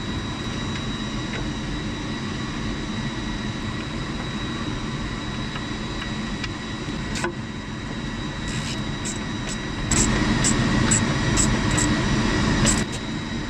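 Steady mechanical hum with a faint high whine. From about eight seconds in, a run of light metallic clicks, a few a second, as a ratchet runs down the bolts that hold a fan outlet guide vane doublet.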